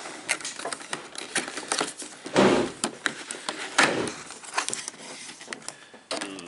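Toy packaging being handled: a run of clicks, taps and rustles of cardboard and plastic, with two louder rustling knocks about two and a half and four seconds in.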